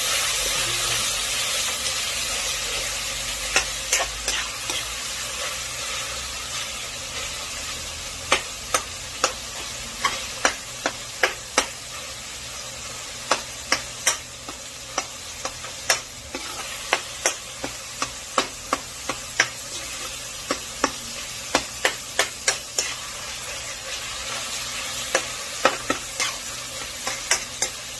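Sliced onions and tomatoes sizzling in oil in a steel wok, with a metal spoon clinking and scraping against the pan many times as it stirs. The sizzle eases a little over the first several seconds.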